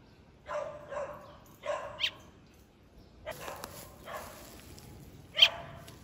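Boxer dog giving a series of short whines and grumbling barks, about seven in all, with a louder, sharper yip about five and a half seconds in.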